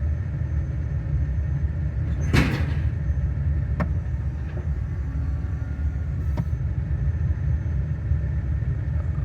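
Chevy 2500 HD pickup's engine idling with a steady low rumble, while its charging voltage drops: the owner thinks the alternator has failed. A brief rush of noise about two seconds in and a couple of light clicks later.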